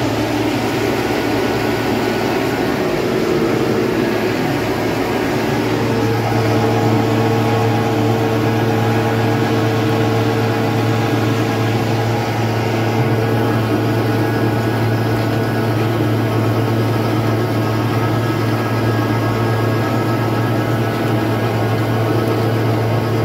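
Tractor engine running steadily under load, heard from inside the cab while it pulls a rotary seedbed harrow through field soil. The engine note shifts slightly about five seconds in, then holds steady.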